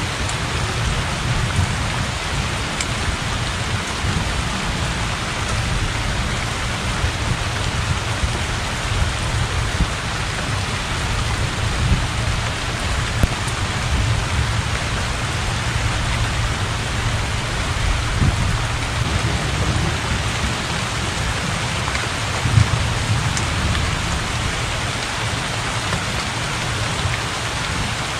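Heavy rain falling steadily on open water and a thatched roof, an even hiss, over a low continuous rumble of thunder.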